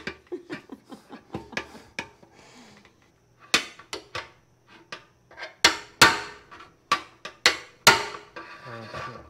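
Metal tapping and knocking on the steel fuel tank of a 1973 Honda CB750 as a dent is worked out with a rod from inside the tank. Light quick taps come first, then about seven harder strikes that ring in the hollow tank in the second half.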